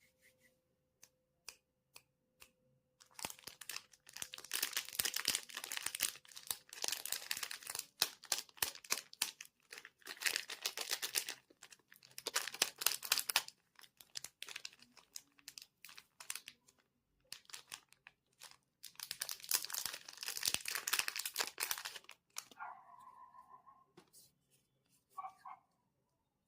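Knife cutting through dry, crumbly bar soap: crackling, crunching strokes in several bursts of a few seconds each, with scattered single clicks in between. Near the end come two brief pitched sounds.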